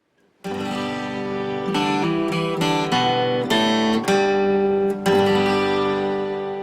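Acoustic guitar playing a short run of strummed chords as intro music, the last chord left ringing and fading.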